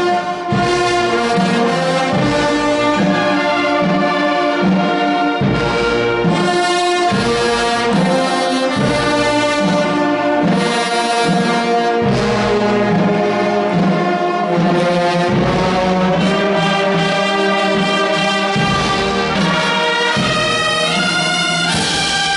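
Wind band playing: clarinets, flutes, saxophone and brass sound held, shifting chords over a regular low bass beat.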